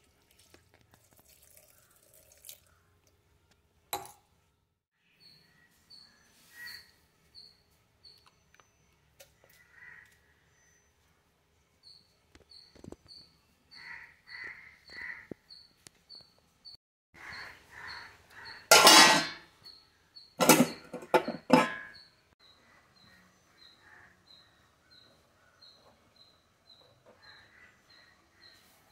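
Steel kitchen vessels knocking and clattering, loudest in a burst of sharp knocks near the middle. Behind it a small bird chirps a short high falling note over and over, about twice a second.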